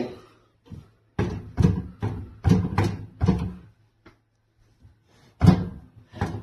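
Microwave oven door being worked: a run of clunks and knocks as the push-button door is popped open and pushed shut, about six in quick succession, then one louder clunk near the end.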